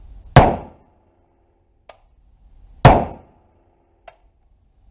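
Two single shots from an HK 416 rifle in 5.56x45 NATO, about two and a half seconds apart, each a sharp crack with a short ring-off, plus two much fainter clicks.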